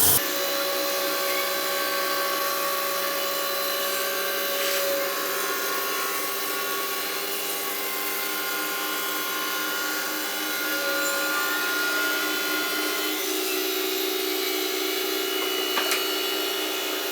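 Sawmill running steadily through a turkey oak log: a continuous mechanical whine made of several held tones, with two light clicks near the end.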